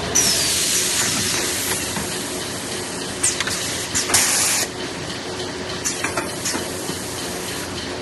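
Semi-automatic kitchen towel roll packing machine working through a cycle. A sudden hiss of air with a short falling whistle runs for over a second at the start. Clicks and a second short, sharp hiss come about halfway through, over a steady machine hum.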